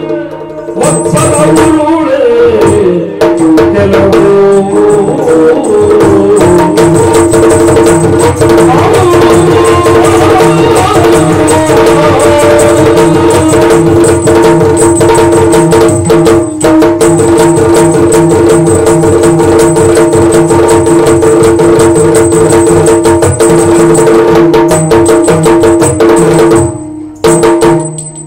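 Yakshagana accompaniment: maddale drumming a fast, dense rhythm for the dance over a steady drone, breaking off briefly near the end.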